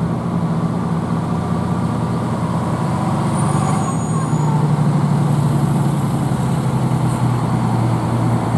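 Fire engines in a slow procession, their engines rumbling steadily; the rumble grows louder about halfway through as a Hahn pumper passes close by.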